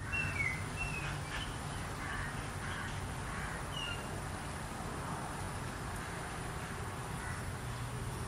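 Outdoor ambience: several short bird calls in the first few seconds over a steady background hiss and a low rumble.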